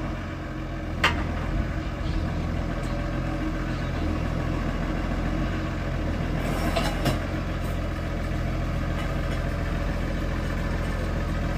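Case IH Puma 200 tractor's diesel engine idling steadily while the stubble rollers are moved hydraulically from the cab. A sharp click about a second in, and a couple of knocks about seven seconds in.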